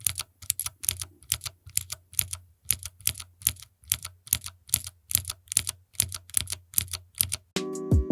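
Mechanical keyboard keys with clicky Cherry MX Blue switches typed in quick succession, about four sharp clicks a second. The clicks stop near the end, where music comes in.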